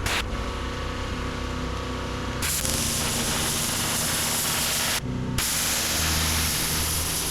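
Pressure washer running with its water jet spraying in a steady hiss over the machine's low hum; the spray stops for a moment about five seconds in, then resumes.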